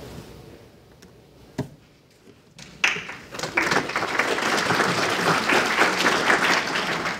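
Audience applauding, starting about three seconds in after a quiet stretch broken by a single click, then a dense, steady clapping.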